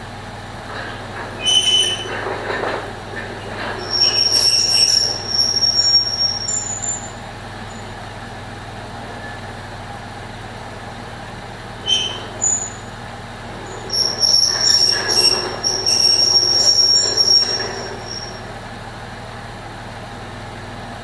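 Freshly swapped Chrysler 3.7 V6 in a 2002 Jeep Liberty idling steadily. Over it come loud high-pitched squeals in two spells, the first about two to seven seconds in and the second about twelve to eighteen seconds in.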